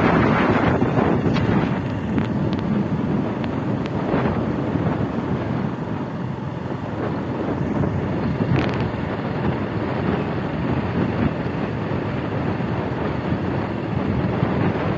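Wind buffeting the microphone on a moving vehicle, over the steady rumble of the vehicle's running and its tyres on the road.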